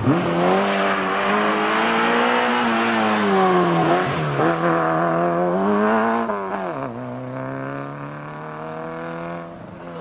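Peugeot 205 rally car's engine revving hard as it goes by, its pitch climbing and dipping, with sharp drops about four seconds in and again near seven seconds as it shifts or lifts off; it is quieter after the second drop as it pulls away.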